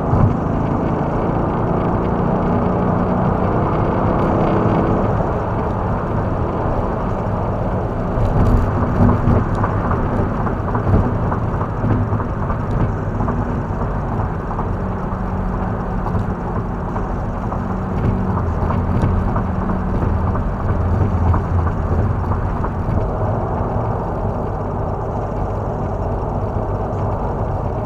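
Supercharged V8 of a Cadillac CTS-V coupe running at highway cruise with steady tyre and road noise, heard from inside the cabin; the engine note swells and eases a few times.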